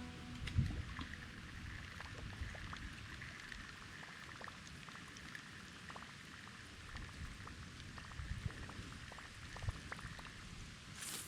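Faint water sounds: small scattered drips and ticks over a soft, steady hiss.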